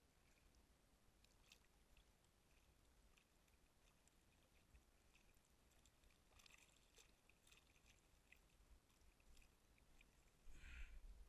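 Near silence on the water: faint scattered ticks and light water sounds, with a short louder splash or rustle near the end.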